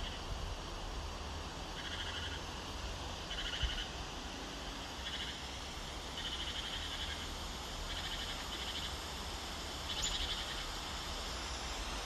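Frog calling: short trilled croaks repeated every second or two, over a steady low rumble.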